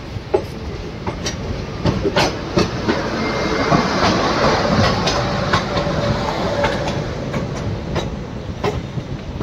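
Sleeper-class coach of a departing express train running out of the station, heard from the open coach doorway: a steady rumble with wheels clicking irregularly over rail joints, getting louder about three to five seconds in.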